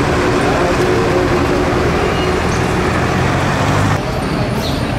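Road traffic with a motor vehicle's engine running close by; the sound drops suddenly about four seconds in.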